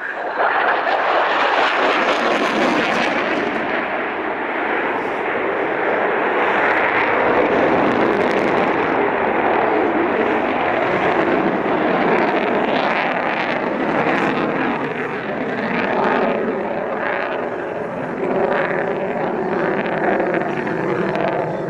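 F-22 Raptor fighter jet's twin Pratt & Whitney F119 turbofan engines, a loud, steady jet roar that comes in sharply at the start and holds, swelling and easing slightly as the jet manoeuvres.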